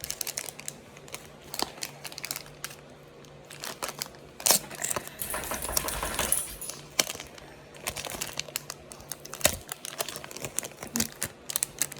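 Small package of miniature bottles being handled and opened by hand: scattered light clicks and taps, with a stretch of crinkling around the middle.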